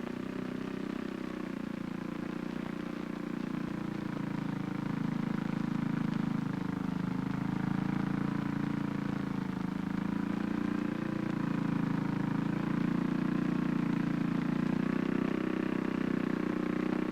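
Motorized parking-lot sweeper running steadily, its engine note wavering slightly in pitch and growing a little louder after a few seconds.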